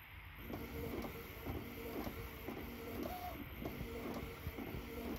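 Printer printing a colour page, starting about half a second in, with a mechanical whir that repeats about twice a second as the print passes go back and forth.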